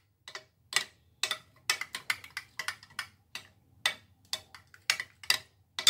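A spoon stirring thick spiced yogurt in a glass dish, clicking and scraping against the dish about twice a second.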